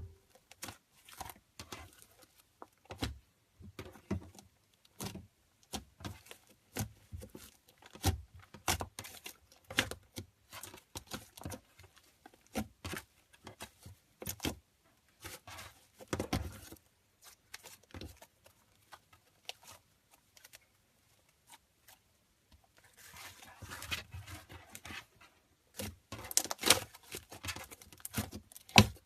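Slime being squished and worked by hand: irregular sticky clicks and small pops, thickening into denser crackling twice near the end.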